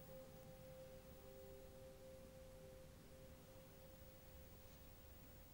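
Near silence: faint room tone with a thin, steady high hum, and a fainter lower tone that fades out about halfway.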